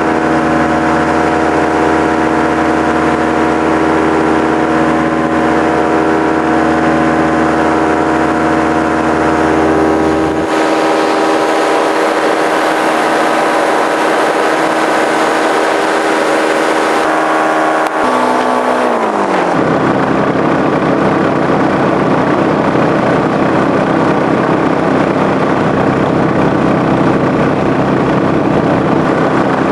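Powered paraglider's motor and propeller running steadily at cruise; about 18 seconds in it is throttled back, the pitch falling over a second or so, then it runs on at lower, rougher revs.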